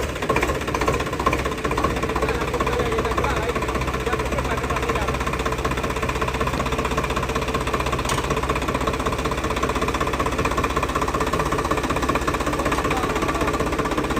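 Swaraj 855 4x4 tractor's diesel engine running steadily.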